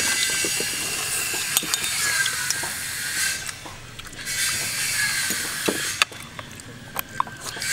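A spoon clicking and scraping against a plate as food is scooped, over a steady hiss.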